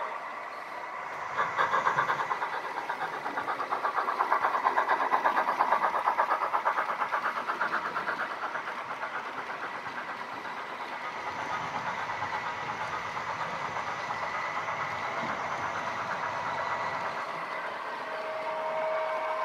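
Model passenger train running past on the layout track: a fast, even clatter of wheels over the rails, loudest in the first half, easing into a steadier, quieter rumble after about ten seconds.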